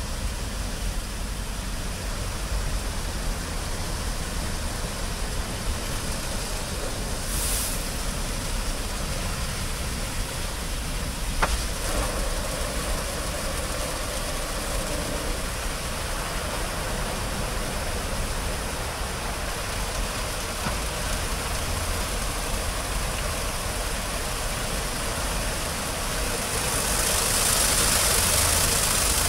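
Automatic rollover car wash gantry running over a car: a steady mechanical drone of motors and spinning brushes with water spraying. A sharp click comes just before the midpoint, and a louder hiss of water spray starts near the end.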